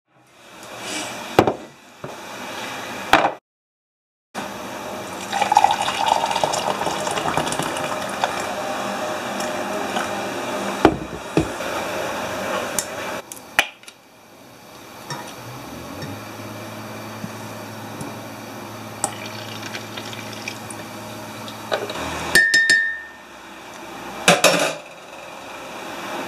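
Tea being made with an electric kettle and a ceramic mug: sharp clinks of china, water pouring for several seconds, then a steady low hum from the kettle that stops suddenly, followed by a few more clinks.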